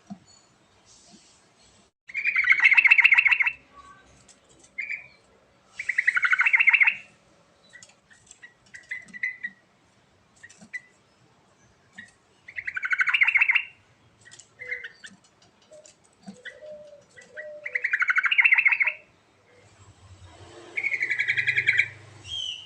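Yellow-vented bulbul (trucuk) singing: five loud, bubbly phrases of rapid notes, each about a second long, with short chirps in the pauses between them.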